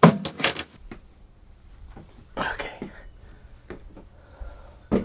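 Handling noise from a heavy wind generator being carried up a boat's companionway: a cluster of knocks at the start, a short scrape about two and a half seconds in, and light clicks, ending with a sharp knock.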